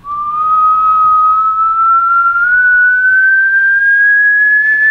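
A man whistling one long note into a door's lock cylinder, the pitch creeping slowly upward without a break.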